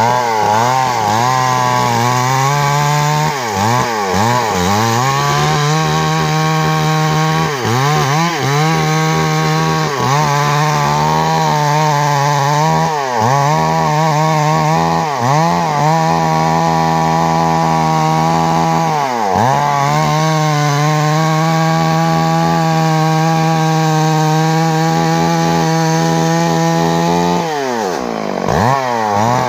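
Stihl MS 382 two-stroke chainsaw running at high revs as it cuts through a large tree trunk. Its engine note dips briefly again and again as the chain loads up in the cut, with a longer drop and recovery near the end.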